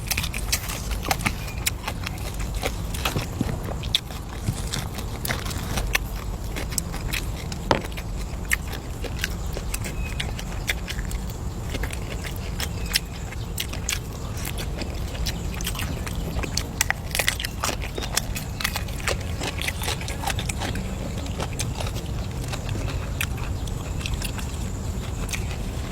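Close-up eating sounds: biting and chewing, with many scattered sharp clicks, over a steady low rumble.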